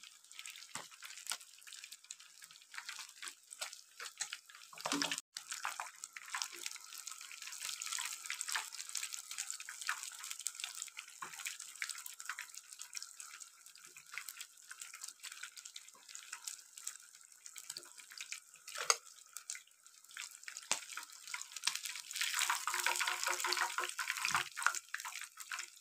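Masala-coated fish deep-frying in hot ghee: a steady crackling sizzle with many small pops, louder near the end.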